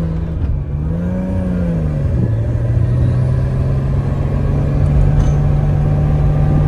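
Car engine running steadily, with a brief rise and fall in pitch about a second in as it revs up and settles back.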